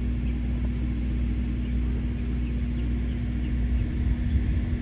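Outdoor field ambience: a steady low rumble, with a faint steady hum and a high hiss that pulses about twice a second.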